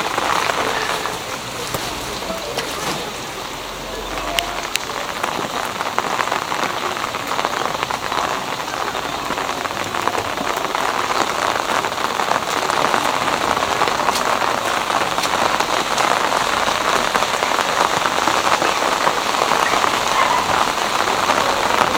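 Steady rain falling and pattering on the street, a dense even hiss of drops.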